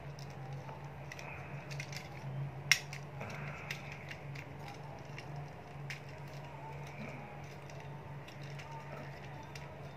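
Plastic joints and parts of a Weijiang Devastator transforming figure clicking and snapping as it is twisted and folded by hand, with scattered small clicks and one sharper snap about three seconds in. A steady low hum runs underneath.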